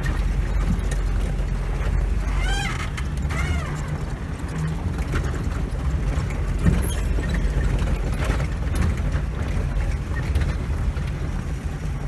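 Soviet UAZ off-roader driving slowly along a rough gravel dirt track, its engine and running gear making a steady low rumble.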